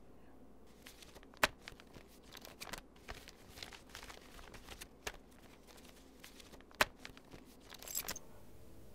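Crinkling and rustling of a food wrapper being handled, with scattered light crackles and two sharper clicks, about a second and a half in and again near seven seconds.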